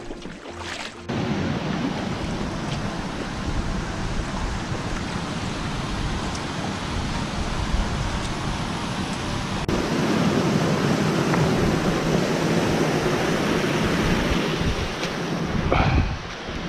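Water rushing over a low concrete weir, a steady noise that starts about a second in and gets louder about ten seconds in.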